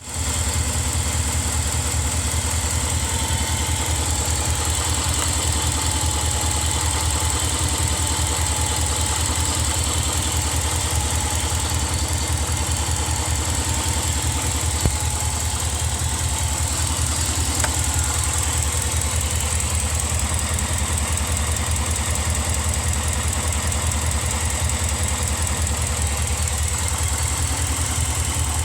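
Engine idling steadily, with a single short click about halfway through. The owner is unsure whether the engine is knocking.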